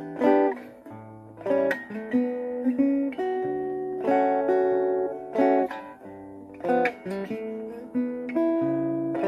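Cort SFX Ash Burl acoustic-electric guitar strummed in chords through a small Marshall amplifier. Each strum rings on between strokes, and the chord changes every second or so.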